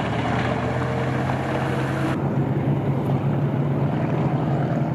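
Steady heavy engine rumble with a low hum, a tank-engine sound effect; the hiss above it drops away about two seconds in.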